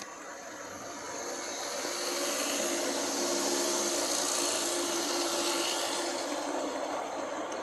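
Large-scale model diesel locomotive and freight cars rolling past close by: the whir of the locomotive's electric motors and gears with the wheels rolling on the rails, under a steady hum. It grows louder over the first few seconds as the engine comes up and passes.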